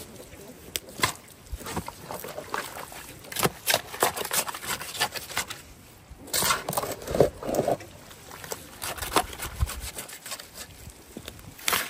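A shovel mixing wet clay soil and water in a steel wheelbarrow: irregular scrapes and knocks of the blade against the metal tray, with wet slopping of the mud, busiest about halfway through.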